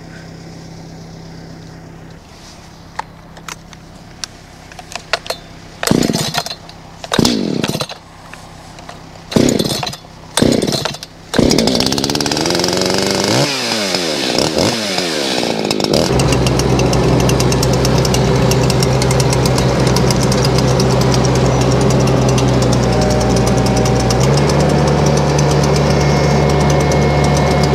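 Echo two-stroke chainsaw being pull-started cold: a few short sputters as the starter cord is pulled, then it catches and runs. It revs briefly, then settles to a steady run as it warms up.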